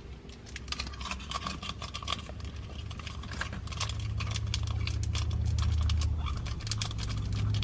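Plastic slime-kit packet crinkling and crackling in the hands as its powder is tipped in, a dense run of small clicks, with a low rumble of handling that grows louder about four seconds in.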